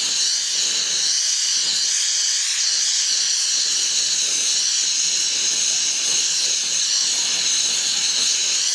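Steady hiss of a gas torch flame heating a joint for silver soldering, while the flux melts and runs into the joint.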